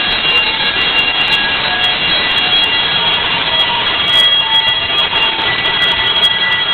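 Fire alarm bells ringing continuously and loudly, set off during a test of a conventional fire alarm system from its manual call point.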